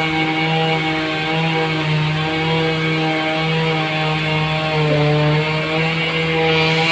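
Sawmill saw machine running at a steady speed, a loud even mechanical hum with a slight dip in pitch about five seconds in.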